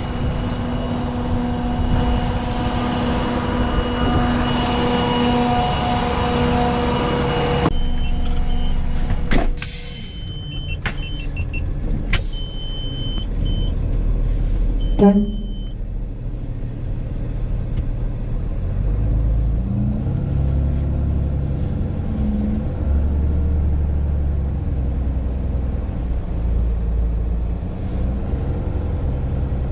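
A steady mechanical whine with a low hum cuts off suddenly about eight seconds in. Then come scattered clicks, a few short high electronic beeps and a single knock. Through the rest, a tow truck's engine idles with a low rumble, heard from inside the cab.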